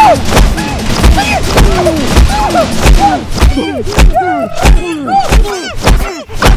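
A rapid run of punches landing on a body, a heavy thud about twice a second, each followed by a short pained cry.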